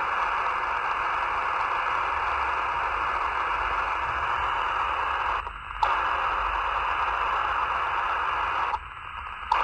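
Static hiss from a Racal 25 VHF handheld radio's speaker, with the squelch open on a channel. The hiss cuts off about five and a half seconds in and again near the end, and each time it snaps back with a short click.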